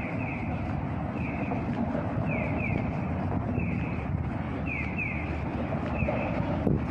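Electronic pedestrian-crossing signal chirping, bird-like pairs of short falling notes repeating about once a second, over a steady rumble of road traffic.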